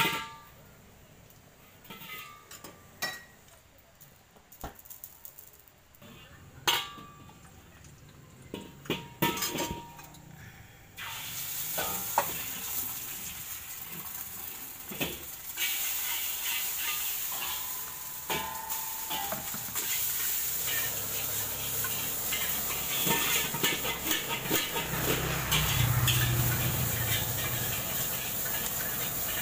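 Metal spatula clinking now and then on a stainless steel wok. About a third of the way in, a steady sizzle of frying starts suddenly and grows louder a few seconds later. It runs on under the scraping and clanking of the spatula as fried rice is stir-fried in the wok.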